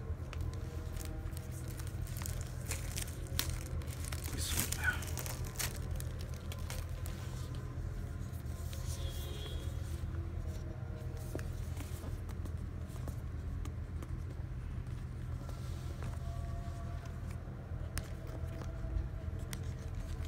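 Hands handling and opening a cardboard Apple Watch box: scraping, rustling and clicks, with a short ripping sound about four and a half seconds in. A steady low hum runs underneath.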